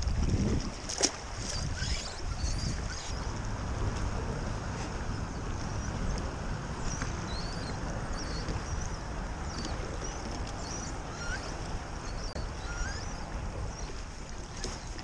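Wind buffeting the microphone over choppy water lapping at a fishing kayak: a steady rush with a heavier gust at the start. A sharp knock comes about a second in, and a few faint short chirps are scattered through.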